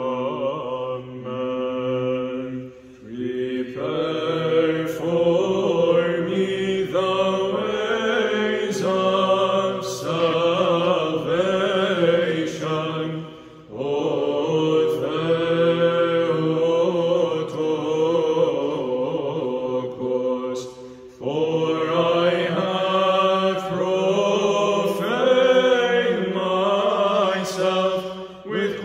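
Small mixed choir of men's and a woman's voices singing Byzantine chant in English: a melody line over a steady low held drone (the ison). The singing comes in phrases, with short breath pauses about 3, 13 and 21 seconds in.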